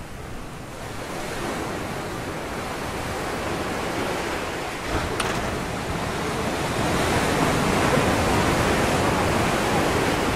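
Ocean surf breaking and washing against a boulder revetment, a steady rushing that swells to its loudest in the second half. A brief click about five seconds in.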